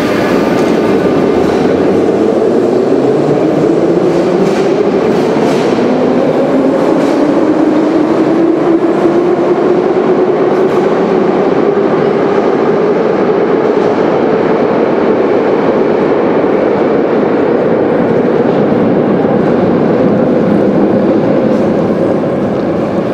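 Moscow Metro train of 81-717/714 cars pulling out of the station: the traction motors whine in a pitch that rises steadily as the train gathers speed, over the rumble and clatter of the wheels.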